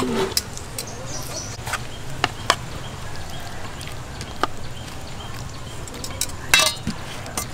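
Metal spoons and tongs clicking and scraping against a plate and a steel bowl as boiled chicken leg meat is pulled apart: scattered light clicks, with a louder cluster about six and a half seconds in.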